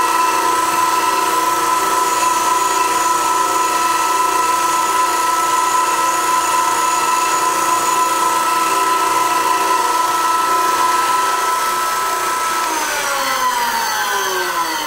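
High-pitched whine of an inside tool post grinder running at speed while its new stone is dressed with a diamond to make it cylindrical. About 13 s in the whine falls steadily in pitch as the grinder is switched off and spins down.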